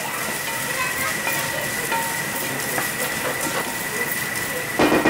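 Diced sweet potatoes, onions and red lentils sizzling steadily in coconut oil in a large frying pan while a wooden spatula stirs them, with a faint steady high tone underneath. A few louder knocks come near the end.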